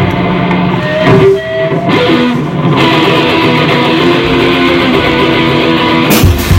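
Live rock band: an electric guitar plays a ringing, sustained intro of held notes and chords, and about six seconds in the drums and full band come in hard.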